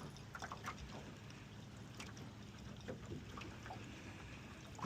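Faint sounds of a fishing boat trolling: a low steady hum with light water noise and a few small clicks.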